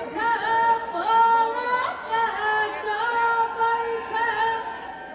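Women's voices singing a Punjabi folk song together on stage, the melody held in long notes that bend from one pitch to the next.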